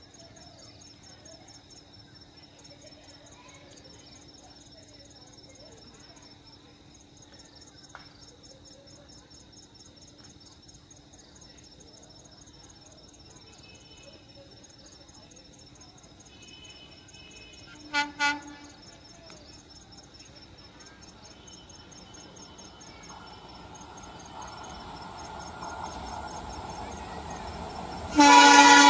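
Crickets chirring steadily while an Indian Railways diesel locomotive hauling an express approaches. About two-thirds of the way through there is a short double toot of its horn, then its rumble builds, and a loud horn blast starts just before the end.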